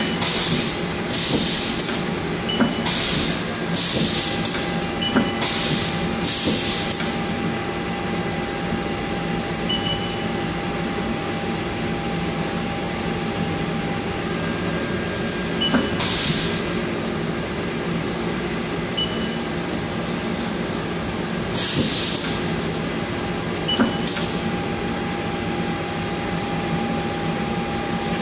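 Haas ST-15Y CNC turning center running a cycle with the door shut: a steady machine hum with a faint whine. Short hissing bursts break in, seven in quick succession over the first seven seconds, then two more much later.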